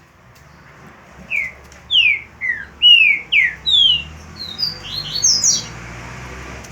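Green-winged saltator (trinca-ferro) singing one phrase of about a dozen clear, downslurred whistled notes, climbing higher in pitch toward the end.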